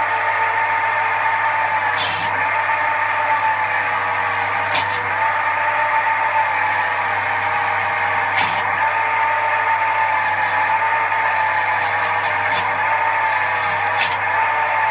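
Record wood lathe running at high speed with a steady whine while a turning tool cuts the spinning wooden bowl blank, with a few brief sharper scrapes as the tool bites.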